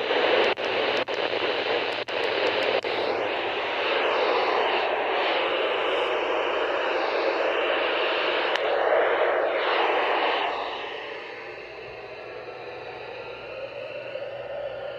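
Radio static between broadcasts: a steady hiss with several sharp clicks in the first few seconds, turning quieter about two-thirds of the way through.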